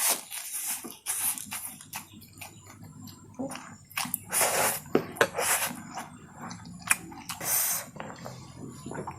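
Close-up eating sounds of chow mein noodles: wet chewing with sharp mouth clicks and several short slurps.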